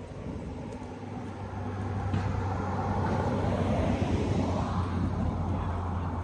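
A car driving past, its engine hum and tyre noise swelling over a few seconds, then fading with a falling pitch as it goes by.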